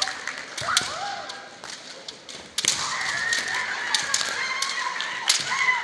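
Kendo players' kiai: several high-pitched, drawn-out shouts that overlap and swell about two and a half seconds in. They are mixed with sharp clacks, typical of bamboo shinai strikes in the hall.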